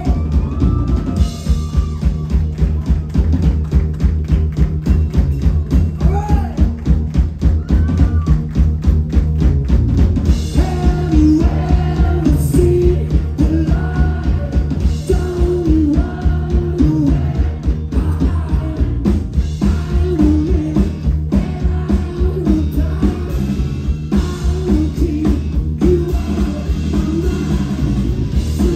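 Live indie rock band playing loudly through a club PA: electric guitar, bass guitar and a drum kit driving a fast, steady beat, with a voice singing over it.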